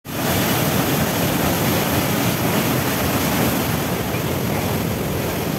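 Water gushing through an open dam shutter and churning white down a narrow masonry spillway channel: a loud, steady rush.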